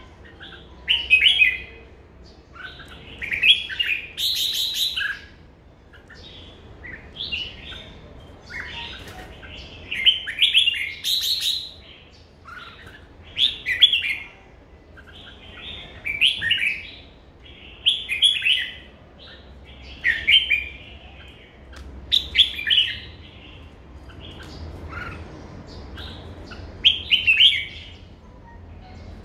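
Red-whiskered bulbul singing: short, clear phrases of song repeated about every two seconds.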